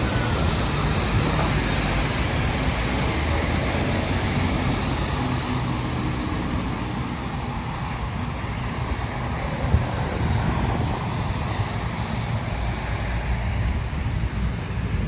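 Steady rumble and hiss of city traffic on rain-wet streets, with no single sound standing out.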